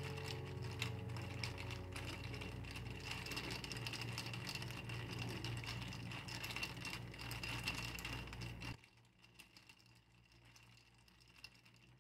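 Ice cubes clinking and rattling against a glass mason jar as iced coffee is stirred: a quick run of small clicks that stops abruptly about nine seconds in.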